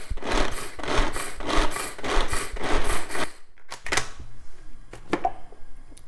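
Hand-powered pull-cord vegetable chopper: the cord is yanked over and over, each pull spinning the blades so they rattle and rasp through green beans in the plastic-lidded bowl. The pulling stops about three seconds in, and a few sharp clicks follow.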